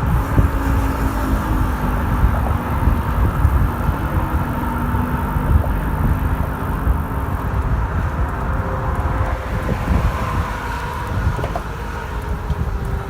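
Wind rushing over the microphone and tyre rumble from a 1994 Trek 930 mountain bike being ridden on the road, with motor traffic going by.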